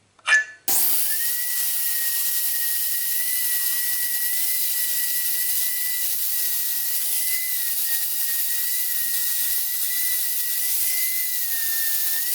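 Power tool motor running steadily with a high whine that dips slightly now and then, as if under light load. It starts abruptly about a second in.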